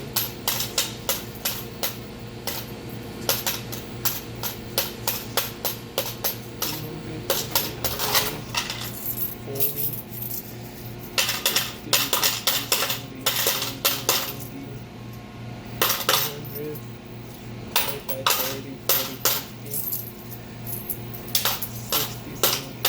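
Coins clinking and clicking in quick clusters as they are counted out of a cash register drawer, over steady background music.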